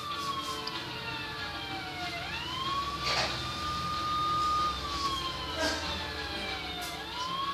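A siren wailing in slow cycles: the pitch falls, swoops back up about two seconds in, holds steady, falls again and rises once more near the end. A few short sharp knocks sound over it around the middle.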